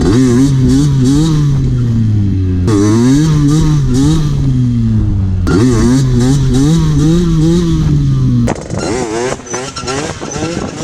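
Derbi Senda's 77cc two-stroke moped engine revving hard in three surges, its pitch jumping up and then wavering and sagging as the throttle is held and eased to balance a wheelie. About eight and a half seconds in the engine drops back to a quieter sound with a few knocks.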